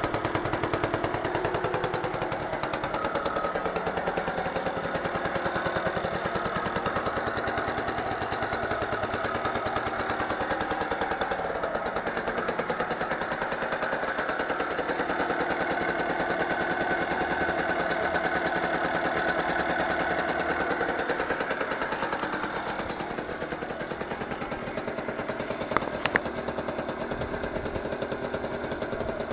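A 1976 Yamaha V50P moped's 50cc single-cylinder two-stroke engine running steadily on its stand, back in use after six months laid up. Its speed drifts a little and eases off slightly a few seconds before the end, with two sharp clicks near the end.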